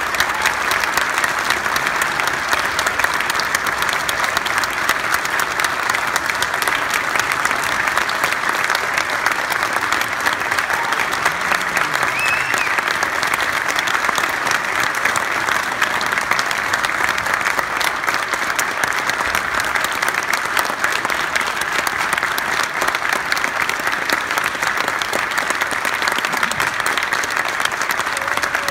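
Audience applauding steadily, many hands clapping together in a dense, unbroken patter.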